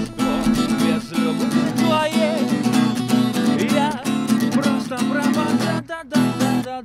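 Acoustic guitar strummed in a steady rhythmic chord pattern, with a brief break in the strumming near the end.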